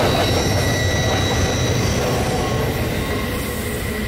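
Freight train rolling past: steady rumble of wheels on rail with a thin, steady wheel squeal, slowly getting quieter.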